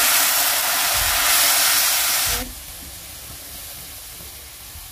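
Water splashed into hot oil with fried onion, garlic, chilli and spice powder in a kadhai: a loud sizzling hiss that drops suddenly about two and a half seconds in to a quieter, steady sizzle. The water is added so the spices don't burn.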